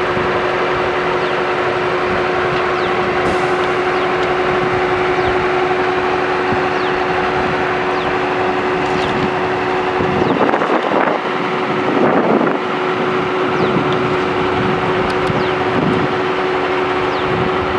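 Truck-mounted borewell drilling rig running: a loud, steady machine drone with a constant hum. About ten seconds in the hum breaks off and the sound surges unevenly for a couple of seconds before settling back to the steady drone.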